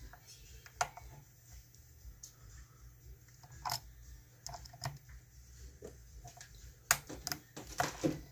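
Small scattered clicks and scrapes of a pick and tension bar working the pins of an ISEO R6 six-pin dimple lock, with a quicker run of sharper clicks about seven to eight seconds in.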